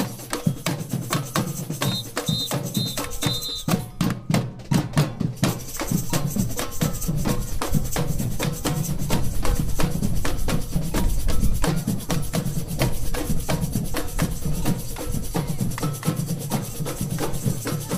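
Samba bateria drumming: a massed group of drums and hand percussion playing a fast, steady rhythm. The higher strokes drop out briefly about four seconds in while the low drums carry on.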